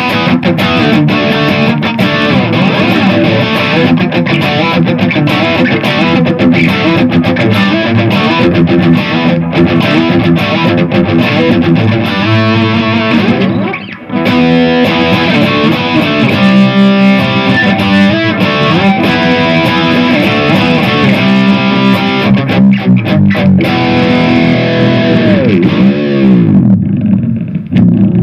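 Electric guitar played through the Lekato Tank G Black amp-modeler pedal on its ENGL Powerball distortion preset: fast, rhythmic distorted riffing with a short break about 14 seconds in. Near the end a held note bends down in pitch.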